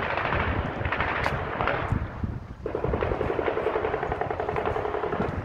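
Automatic gunfire: rapid, dense bursts of shots, then from about halfway a long, even, rapid rattle that carries on to the end.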